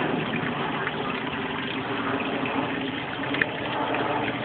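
Water of a shallow rocky creek running steadily over stones, with one short sharp click about three and a half seconds in.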